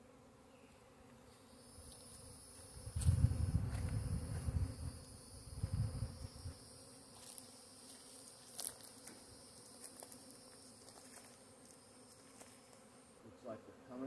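Honey bee swarm buzzing around the hives, a steady faint hum, with a low rumble from about three to six and a half seconds in.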